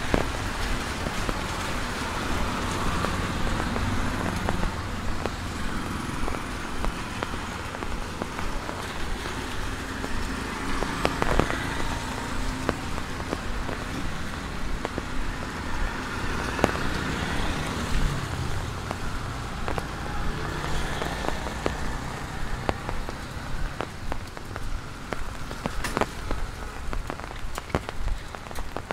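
Steady rain falling on a wet road and pavement, with cars passing on the wet street during the first half. A few sharp ticks stand out now and then.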